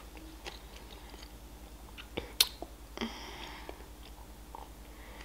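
Faint mouth noises close to the microphone: scattered soft clicks, two sharper clicks about two seconds in, and a short breath about three seconds in.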